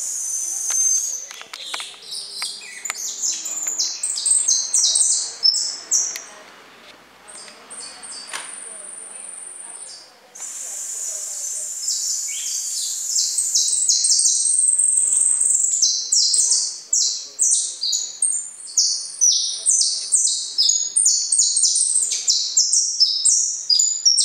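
Caged finch practising its song: fast runs of high chirps and trills, thinning out about six seconds in around one long held high note, then resuming in an unbroken rapid warble.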